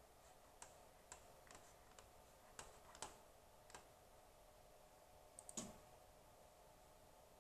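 Faint, sharp clicks at irregular intervals, about eight in the first four seconds, then a quick run of three clicks with a dull knock about two thirds of the way through, over a faint steady hum.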